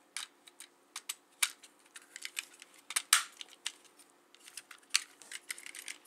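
Hard plastic clicks, taps and rattles of a GM power window switch housing being handled and pressed back together by hand, irregular, with louder snaps about a second and a half in, around three seconds and near the end. The housing is not going fully together.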